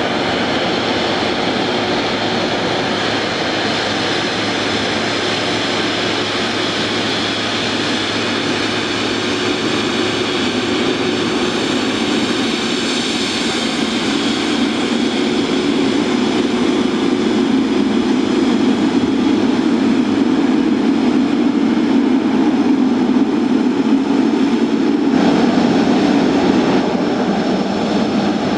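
Boeing 777-300ER's GE90 turbofan engines running at low taxi power: a steady jet roar with a high fan whine, growing louder in the second half as the airliner passes.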